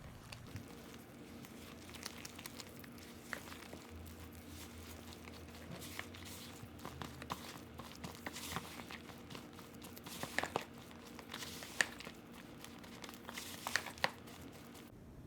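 Flour, yogurt and yeast mixture being mixed in a bowl for naan dough: irregular light scraping, crackling and clicks, busier and sharper in the second half, over a faint steady hum.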